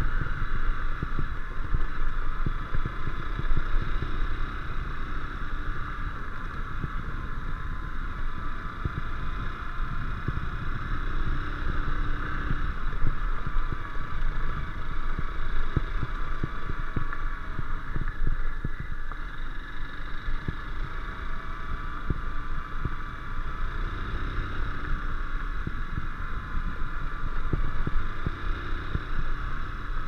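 Honda CBF150 motorcycle's single-cylinder four-stroke engine running steadily while riding along, with frequent small knocks throughout.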